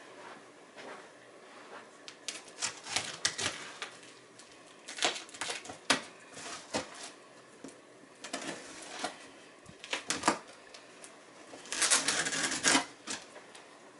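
Small knife blade slitting and scraping along packing tape on a cardboard shipping box, a scattered run of sharp clicks, taps and short scrapes. Near the end a louder rasp lasting about a second as the tape is pulled at by hand.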